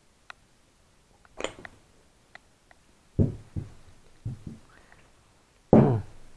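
Handling noise of metal parts on a table: scattered light clicks, then two heavier knocks, the second near the end as the aluminium calibration fixture is set down.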